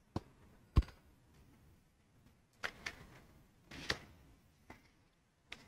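Handling noise from knotting paracord at a table: a handful of scattered light knocks and taps, the sharpest just under a second in.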